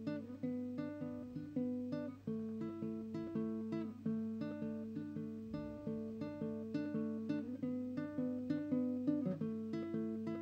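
Instrumental intro on a small acoustic plucked-string instrument: single notes picked in a steady repeating pattern, about four a second, each ringing and fading.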